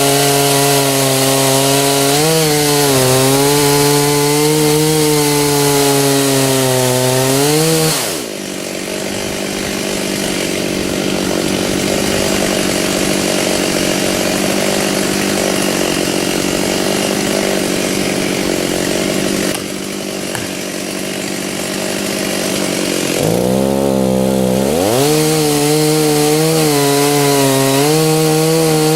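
Stihl chainsaw cutting oak: the engine runs at full throttle with its pitch wavering under load, drops back to idle about eight seconds in, then revs up again a little over twenty seconds in and keeps cutting.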